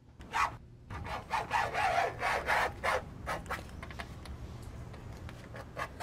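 Repeated rasping scrapes, about three quick strokes a second for the first three seconds or so, then a fainter steady rustle, over a low hum.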